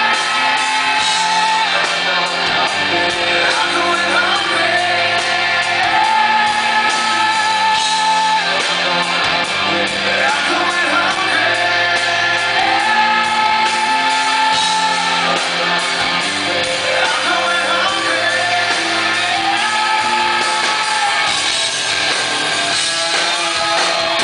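Live rock band playing, with a male lead vocal singing long held, wavering notes in phrases that repeat every few seconds over sustained band chords. Recorded from the audience in a large hall, with shouts from the crowd mixed in.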